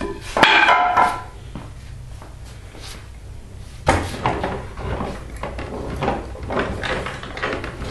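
Homemade toy logging truck and jammer being handled: sharp clicks and knocks of the toy's parts and small logs, with a sharp click about half a second in and another knock near four seconds.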